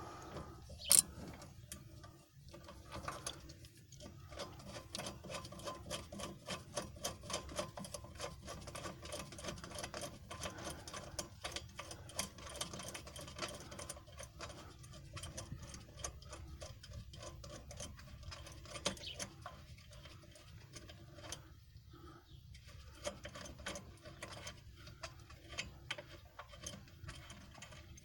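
A 1/2-inch socket ratchet clicking rapidly in quick strokes as it tightens a shock mounting nut, with short pauses between runs of strokes. A single sharper clank comes about a second in.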